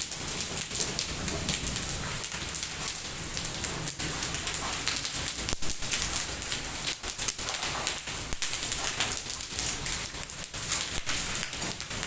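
Hailstorm: a dense, steady patter of hailstones striking hard surfaces, with many small sharp impacts over a constant hiss.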